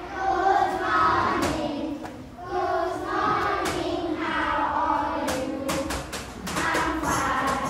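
Music with several voices singing together, and sharp percussion hits coming thick and fast over the last couple of seconds.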